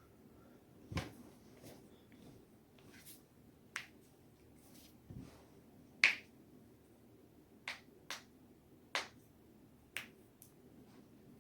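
A person's joints being deliberately cracked: a run of about nine short, sharp pops, unevenly spaced, the loudest about six seconds in.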